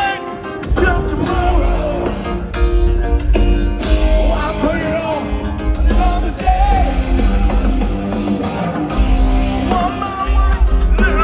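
Live rock band playing loud, with a singer's lead vocal over electric guitars, drums and a heavy bass, as heard from the audience of an open-air concert.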